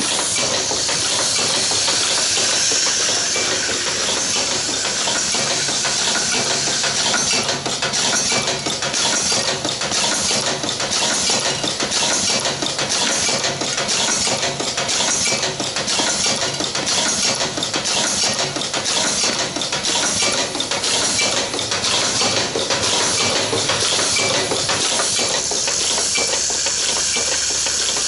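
Automatic spring-lock zipper slider and spring assembly machine running in auto mode: a steady hiss with a metallic clatter of many quick clicks as small metal parts are fed, assembled and dropped.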